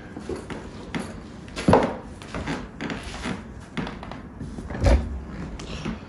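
Handling knocks and rustles: a sharp knock about a second and a half in, and a heavier low thump near the end as the recording phone is grabbed.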